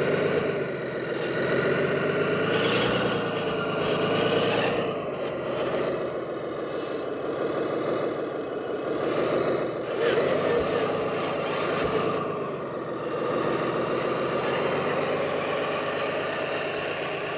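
RC 8x8 dump truck's simulated diesel engine sound from its sound kit, running steadily and rising and falling in pitch several times with the throttle as the truck drives off.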